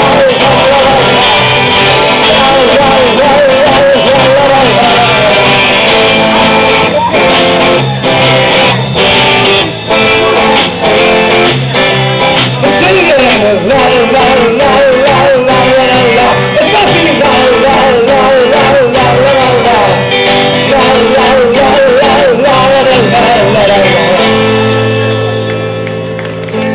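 Live band music: singing over guitar, ending on a long held chord that slowly fades out near the end.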